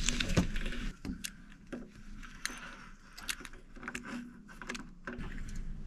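An adjustable wrench on a brass temperature/pressure relief valve as it is unscrewed from a water heater tank: scattered small metal clicks, knocks and scrapes.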